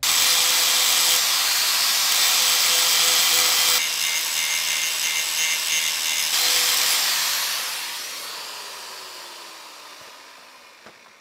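Angle grinder grinding down the brake adjuster locking bolt on a Series 1 Land Rover's rear brake backing plate, so that it no longer sits proud against the brake shoe. The grinding tone shifts a couple of times as the disc bites. From about seven seconds in the grinder fades out with a falling pitch as it winds down.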